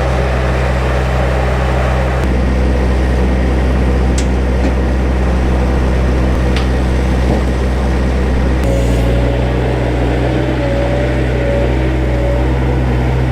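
A vehicle engine running steadily, its hum shifting to a slightly different pitch about nine seconds in.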